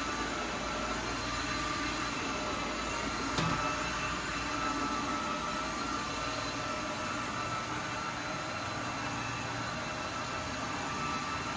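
Tineco Floor One Stretch S6 cordless wet-dry vacuum mop running steadily in auto mode, vacuuming and mopping at once: an even motor whine with a high steady tone. A short knock about three and a half seconds in.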